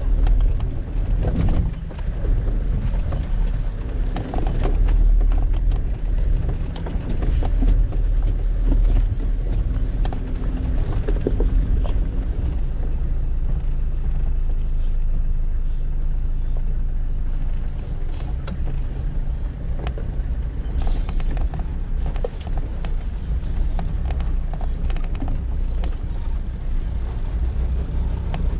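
A 4x4's engine running as it drives along a dirt track, with a steady low rumble and scattered knocks and clicks from stones and bumps under the tyres.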